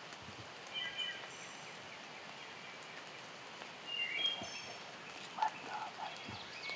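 Steady hiss of rain falling on leaves and ground, with short high chirping phrases from small birds about a second in and again around four seconds. A few lower notes come near the end.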